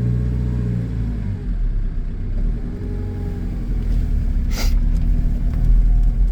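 Vehicle engine and road rumble while driving, a steady low drone. A single sharp click sounds about four and a half seconds in.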